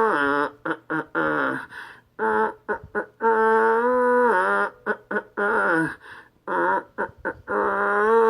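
A man singing a melody unaccompanied, without words: held notes that slide from one pitch to the next, broken by short pauses for breath.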